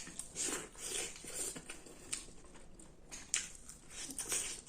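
Close-miked person chewing and biting food, irregular mouth sounds a few times a second with pauses between.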